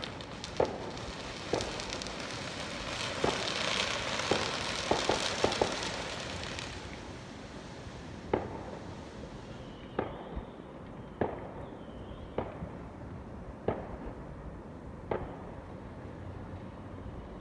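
Fireworks going off: a series of sharp bangs a second or so apart, with a spell of dense crackling in the first half.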